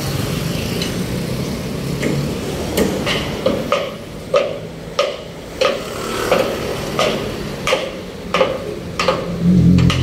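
Hammer blows on metal, repeated steadily about one and a half times a second with a short ring after each, over the hum of road traffic. A vehicle engine grows loud near the end.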